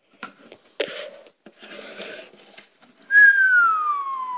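A person whistling one long falling note, a mouth-made incoming-shell effect, starting about three seconds in and sliding steadily down in pitch. Soft hissing noises come before it.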